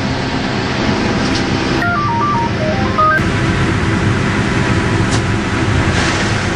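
Steady din of sawmill log-carriage machinery running. About two seconds in, a quick run of about a dozen short electronic beeps at different pitches plays over it.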